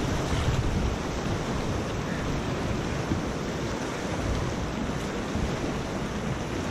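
Steady rush of turbulent whitewater around a kayak running a river rapid, with wind buffeting the microphone.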